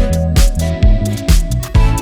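Background music: an upbeat electronic track with a steady kick drum about twice a second under a pulsing bass line.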